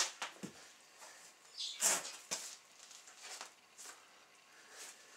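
Hide being pulled off a hanging deer carcass by hand: a series of short tearing sounds as the skin parts from the meat, the loudest and longest about two seconds in.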